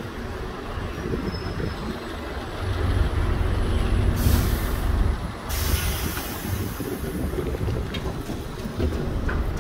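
A heavy road vehicle's engine running close by, with two air-brake hisses: a short one about four seconds in and a longer one at about five and a half seconds that fades over a couple of seconds.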